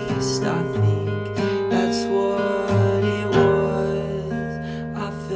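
Acoustic guitar in open D A D G A E tuning with a capo on the first fret, playing an instrumental passage of picked chords whose notes are left to ring.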